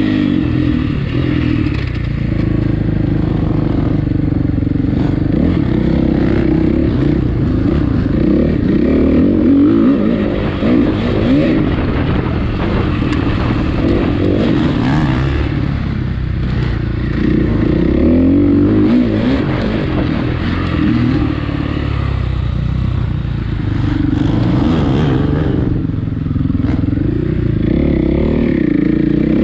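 Dirt bike engine running on a trail ride, its pitch rising and falling repeatedly as the throttle is opened and eased off.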